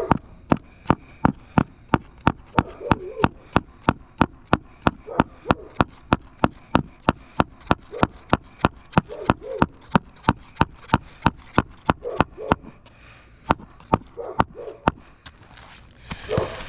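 Hammer knocking on roofing nails, a fast, even run of sharp strikes at about four a second that stops shortly before the end, with faint short barks of a dog in between.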